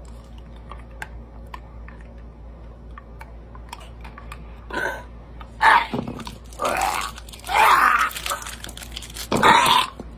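A man biting and crunching a hard candy lollipop with a whole cricket set in it: faint crunches and chewing clicks at first. About halfway through come several loud gagging, groaning noises as he balks at the bug.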